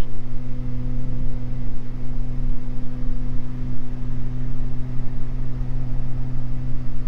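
Twin-engine Beechcraft G58 Baron in cruise flight, its two six-cylinder piston engines and propellers making a loud, steady drone in the cabin with a constant low hum and its overtones.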